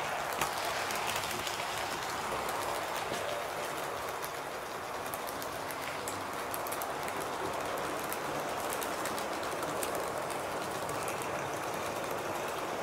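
HO scale model train running along the track: a steady rolling noise with faint scattered clicks from the wheels.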